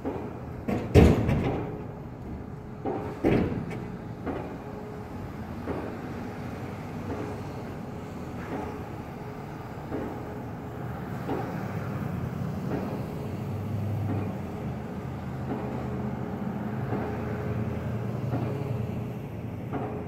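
Pile driver hammering piles at a railroad bridge, heard at a distance: regular thuds about every second and a half, with two louder bangs in the first few seconds. Passing traffic rumbles underneath, growing louder in the second half.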